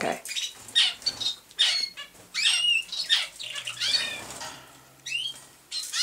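Domestic canaries chirping and calling: short separate rising and falling chirp notes, about one a second, from several birds.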